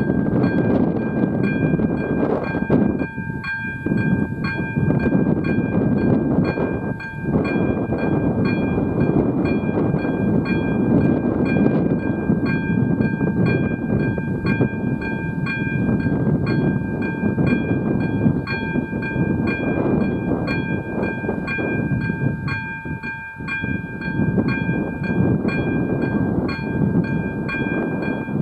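Level crossing warning bell of AŽD 97 signals ringing steadily, about two strikes a second, over the continuous rumble of a train at the crossing.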